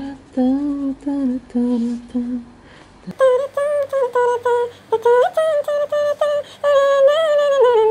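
A woman humming a tune to herself in short separate notes, lower at first, then higher and louder from about three seconds in.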